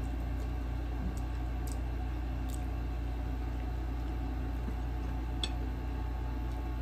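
Person chewing a mouthful of noodles, with a few faint short mouth clicks, over a steady low background hum.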